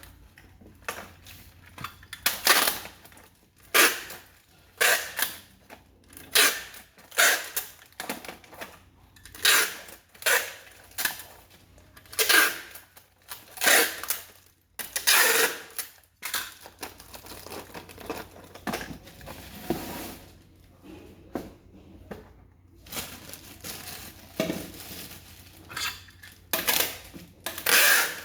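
Packaging and small parts being handled: rustling and clattering in short bursts about once a second, with a quieter stretch in the second half before the bursts resume near the end.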